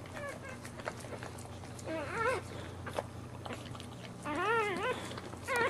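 Newborn boxer puppy whimpering and squealing in several short cries that rise and fall in pitch, the longest about four seconds in.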